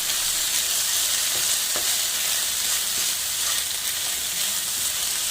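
Chicken and vegetables sizzling in a hot pan with a steady hiss while being stirred, with a few faint clicks of the spoon.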